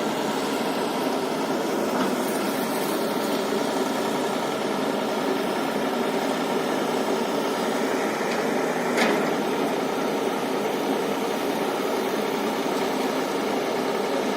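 Diesel engine of heavy earth-moving machinery running steadily, with a brief knock about nine seconds in.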